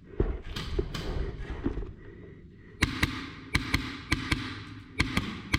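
Irregular sharp clacks and knocks: a few in the first second, then a quicker uneven run of about nine from nearly three seconds in.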